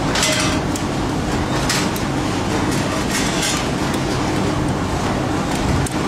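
Steady mechanical rumble of workshop machinery, with a few short hisses in the first half.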